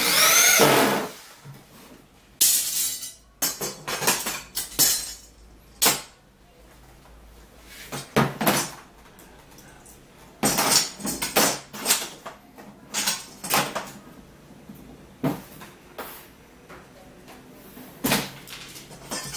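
Corded electric drill driving screws into a particleboard drawer box: a run of about a second at the start with the motor's pitch rising and falling, then a string of short bursts and sharp knocks as screws go in and metal parts are handled.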